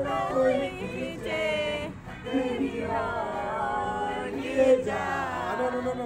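Several people singing a song together, karaoke-style, their voices overlapping.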